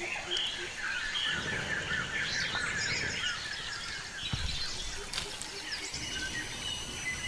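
Several wild birds chirping and calling over a steady background hiss, with a couple of soft low rushes of noise.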